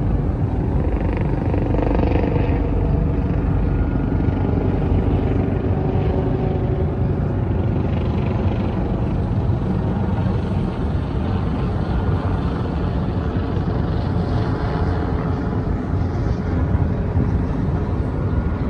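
Steady low rumble of the car carrier ship DEMETER LEADER's machinery as it manoeuvres off the pier on departure.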